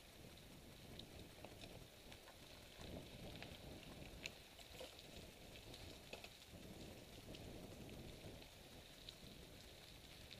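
Faint crunching and rattling of mountain bike tyres rolling over a dry, loose dirt trail, with scattered light clicks and ticks.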